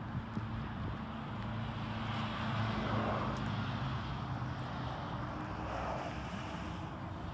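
Ford F-150 pickup's V8 engine idling with a steady low hum, growing louder partway through as the front of the truck is approached.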